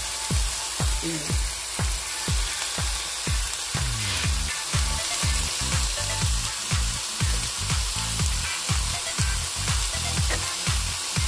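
Ground-beef kebabs sizzling steadily as they fry in oil in a nonstick pan over lowered heat. Background music with a steady beat of about two strokes a second plays throughout.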